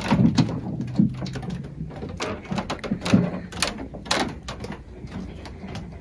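Close-up rustling with irregular clicks and knocks, as of gear being handled.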